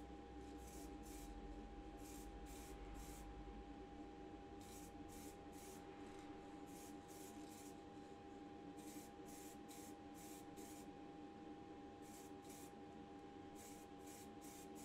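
Aerosol primer spray can sprayed in many short bursts, each a brief faint hiss, often two or three in quick succession, over a steady low hum.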